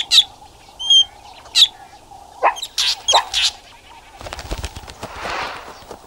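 Fork-tailed drongo giving a series of sharp, harsh alarm calls: a false alarm meant to scare meerkats off their food. From about four seconds in, a quick run of wingbeats follows as the bird takes off.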